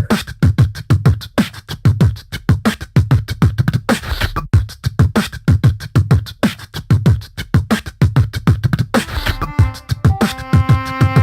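Beatbox rhythm: a fast, steady loop of vocal kick and snare sounds with deep low kicks. About nine seconds in, a melody of held synth-like notes comes in over it.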